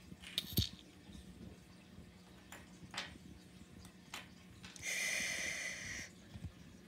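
Small plastic toy figures clicking and tapping against a wooden tabletop as they are handled, a few separate light clicks. About two thirds of the way through comes a louder, rasping hiss lasting just over a second.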